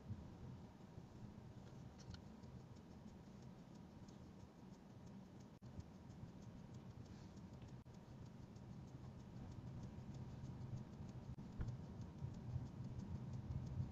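Faint low road and engine rumble of a car heard from inside the cabin, with light scattered ticking and a brief dropout about five and a half seconds in.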